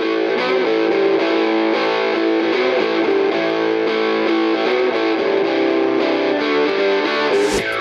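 Background music led by guitar, some of it distorted.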